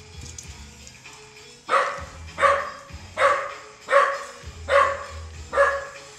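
A young dog barking at its own reflection in a mirror: six sharp barks a little under a second apart, starting after a pause of almost two seconds.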